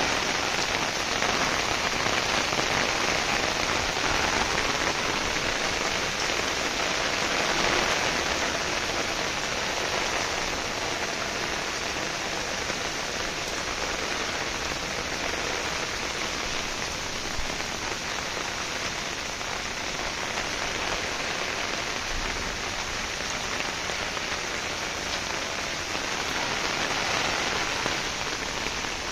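Heavy rain pouring down in a steady, dense hiss, a little louder at the start and again near the end.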